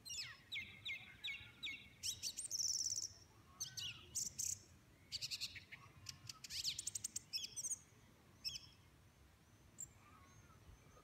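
A songbird singing a run of varied, high phrases: quick trills, clear repeated notes and sweeping whistles. The singing thins out to a few faint notes about eight seconds in.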